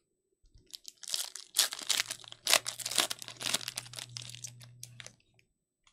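Foil wrapper of a trading card pack being torn open and crinkled in the hands, a dense irregular crackling lasting about four seconds.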